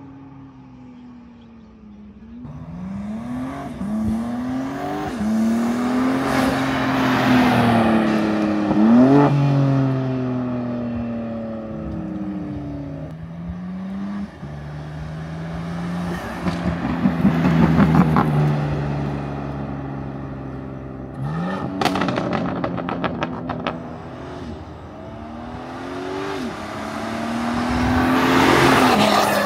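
BMW G87 M2's twin-turbo inline-six accelerating hard past through a CGW valved stainless exhaust with the valves open, revving up and dropping at each of several upshifts. About 22 s in there is a rapid burst of pops and crackles on lift-off. Near the end a further pass rises in pitch with the exhaust valves closed.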